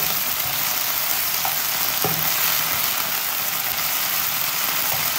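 Marinated chicken pieces sizzling steadily as they shallow-fry in sunflower oil in a non-stick pan, with a metal spoon stirring and scraping through them, a few light clicks of spoon on pan.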